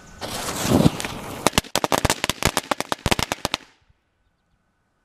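Homemade firecracker filled with firework powder going off: the charge bursts into a loud rushing hiss, then a rapid string of sharp crackling pops runs for about two seconds and stops abruptly.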